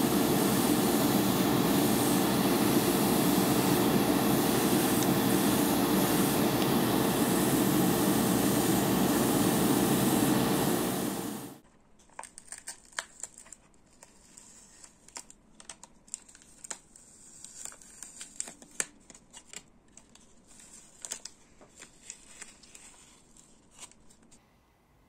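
Model-painting spray equipment running: a loud, steady hiss over a motor hum that cuts off suddenly after about eleven seconds. After it come faint, scattered small clicks and paper crinkles from handling parts and masking paper.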